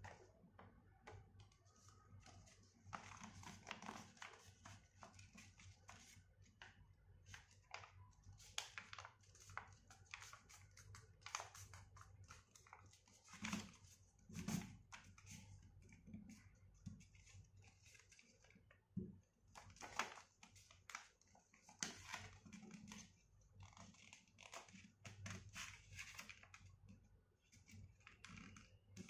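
A sheet of paper being folded and creased by hand on a table: faint, irregular rustling and crinkling with scattered light taps and scrapes, over a steady low hum.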